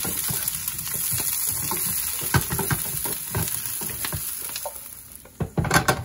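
Sliced mushrooms and scallions sizzling in hot oil in a nonstick frying pan while a wooden spatula stirs them, scraping and tapping against the pan. A few louder clatters come near the end.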